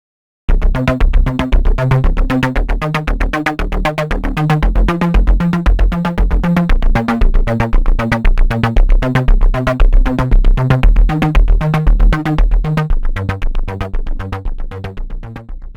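Electronic synthesizer music with a steady beat over a stepping bass line. It starts abruptly about half a second in and fades toward the end.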